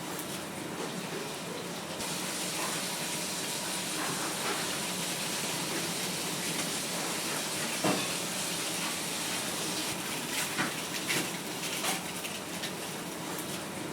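Eel fillets grilling over charcoal: a steady sizzle with scattered pops and crackles, becoming brighter about two seconds in.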